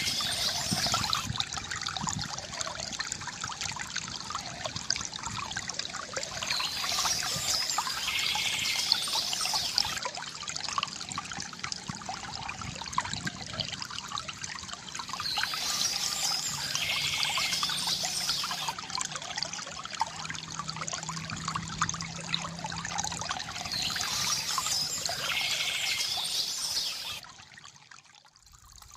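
River water gurgling and trickling, with birds chirping in brighter patches that come back about every nine seconds. The sound drops away sharply for a moment near the end, then returns.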